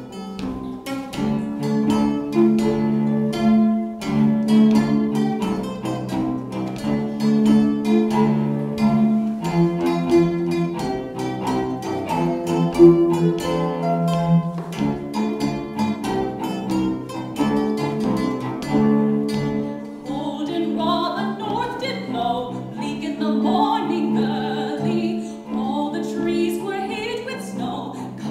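Harp and a small plucked string instrument playing an instrumental introduction, with a female voice starting to sing over them about two-thirds of the way in.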